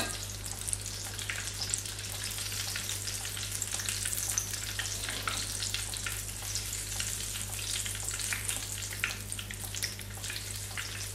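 Breaded lentil croquettes deep-frying in hot oil in a shallow frying pan: a steady sizzle with fine crackling pops throughout. A low steady hum sits beneath it.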